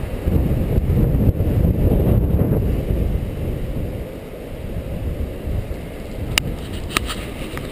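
Wind buffeting the microphone of a bike-mounted action camera on a moving bicycle: a loud, low, rumbling noise, strongest in the first few seconds. A few sharp clicks come near the end.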